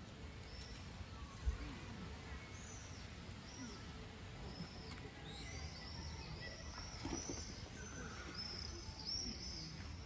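Small birds chirping outdoors: many short, high chirps that become busier in the second half, over a low steady rumble. A single sharp knock about a second and a half in is the loudest sound.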